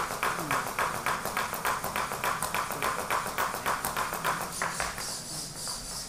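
A small quadruped robot's feet tapping on the stage floor as it walks, a quick, even patter of about six taps a second that grows fainter near the end.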